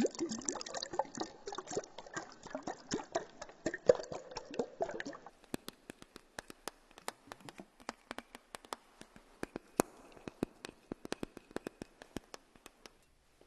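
Water splashing and trickling with many small clicks for about five seconds, then a run of separate, sharp drips that stops shortly before the end.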